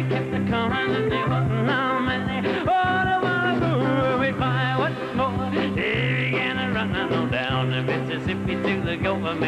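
Live skiffle-style song: strummed acoustic guitar over a steady, bouncing bass line, with a man singing a quick melody on top.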